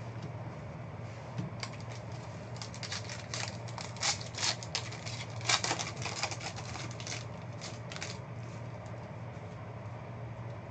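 Foil trading-card pack and cards being handled: a cluster of rapid crinkling crackles over several seconds, loudest in the middle, over a steady low room hum.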